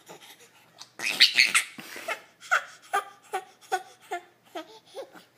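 Baby laughing hard: a loud squeal about a second in, then a run of about seven short, even bursts of laughter, two or three a second.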